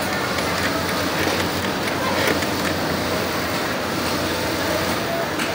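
Steady mechanical clatter of industrial sewing machines running in a garment workroom.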